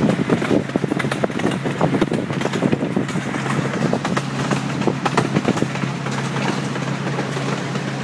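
Amusement park ride train running along its track: the locomotive's engine hums steadily under a dense, irregular clatter of the cars rattling and clicking over the rails, the clicking thinning out near the end.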